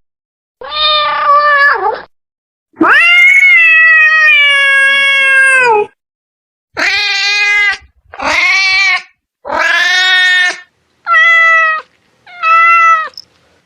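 Domestic cat meowing seven times in a row, with short silent gaps between the calls. The second meow is a long, drawn-out one of about three seconds; the others last about a second each.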